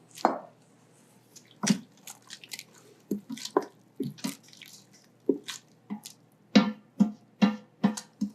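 Kitchen utensils and dishes clinking: about fifteen irregular sharp taps, some ringing briefly.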